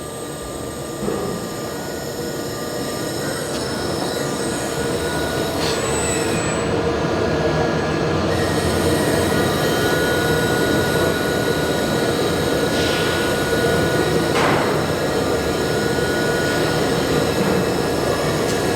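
IPG LightWELD laser cleaning the weld seams of a stainless steel box: a steady noisy hiss from the laser ablation. It grows louder over the first few seconds, then holds steady.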